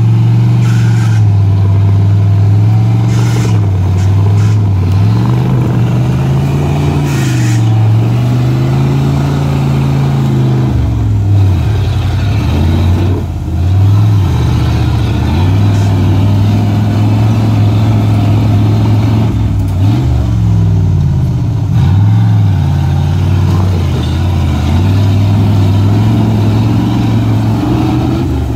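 Off-road vehicle's engine working a rough trail, its revs rising and falling over and over as the throttle is fed in and backed off, with a few short sharp noises in the first several seconds.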